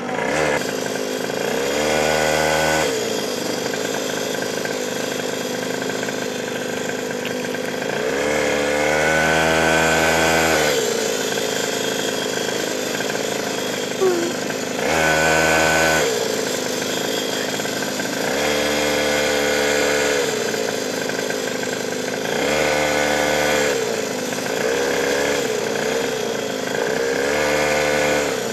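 49 cc two-stroke pocket bike engine running, revving up and falling back about six times as the throttle is opened and closed.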